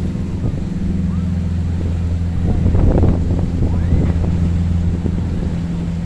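Strong wind buffeting the microphone over rough surf, with a low steady drone of boat engines underneath; the rumble swells about three seconds in.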